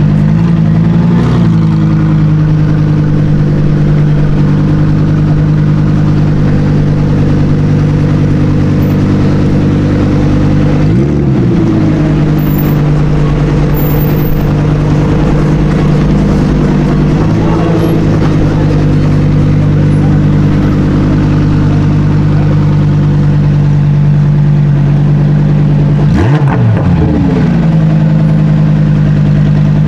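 A car engine idling steadily and loudly. It is blipped four times, each a short rev that rises and falls back to idle: near the start, about a third of the way in, just past halfway, and near the end.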